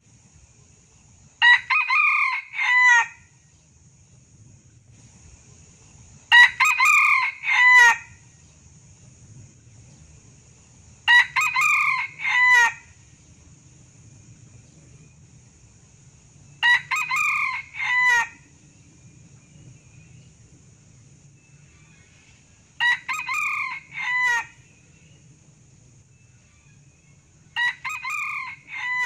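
Male red junglefowl crowing six times, about every five seconds, each crow short and broken into several clipped parts.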